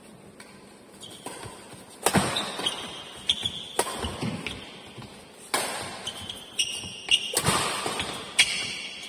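Badminton rackets striking a shuttlecock during a rally, about five sharp smacks roughly one and a half to two seconds apart. The hit a little past seven seconds is the loudest. The hits echo briefly in a large hall.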